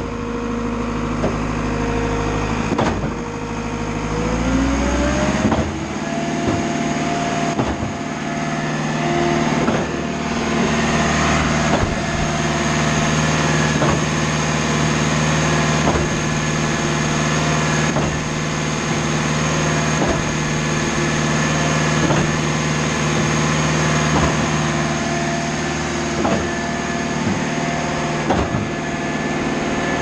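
Schwing WP 1000 trailer concrete pump running on a pressure test, pushing water through its material cylinders: the engine speeds up about four seconds in and then runs steadily, with a knock about every two seconds as the pump cycles its strokes.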